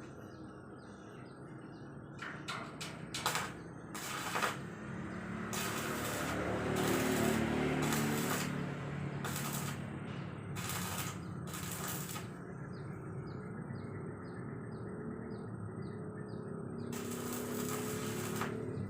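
An engine runs in the background, swelling for a few seconds around the middle and then easing, with scattered knocks and clatters. A bird chirps repeatedly with short, evenly spaced calls.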